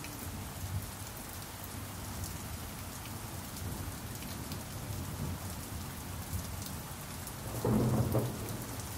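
Steady rain falling, with scattered drop ticks over a low rumble. A short, louder swell of thunder comes near the end.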